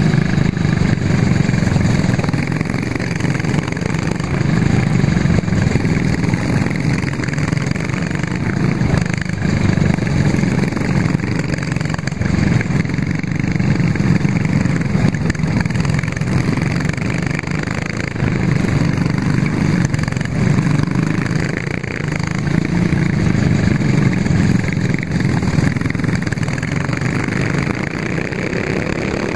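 Racing kart engine at full race pace, its pitch rising on the throttle and dropping off every few seconds as the kart laps the track, with a steady hiss of noise over it.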